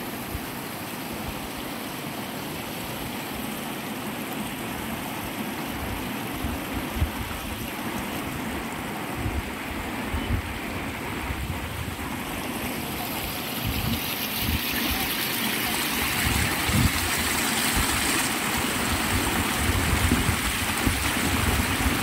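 Water rushing and splashing over rocks, a steady hiss that grows louder and brighter a little past halfway, with gusts of wind rumbling on the microphone.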